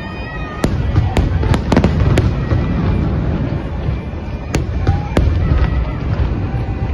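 New Year fireworks display bursting: sharp cracks at irregular intervals, several in quick succession in the first two seconds and a couple more about five seconds in, over a continuous low rumble of distant explosions.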